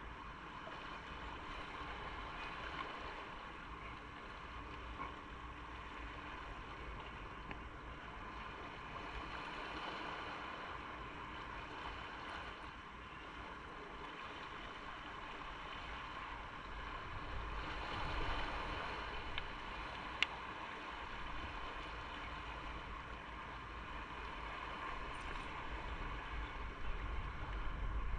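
Motorcycle under way: a steady rush of wind and road noise with the engine running underneath. A single sharp click comes about twenty seconds in.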